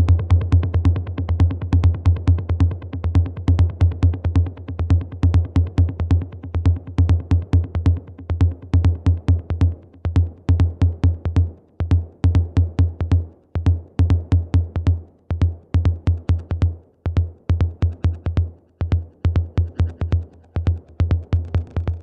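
Roland TR-8 drum machine playing a techno beat: a steady low kick drum with crisp hi-hats ticking above it. From about ten seconds in the pattern turns sparser, with short gaps between the hits.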